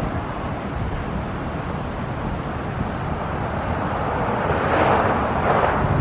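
Steady rushing roar of a fast, high river swollen with snowmelt, swelling louder near the end.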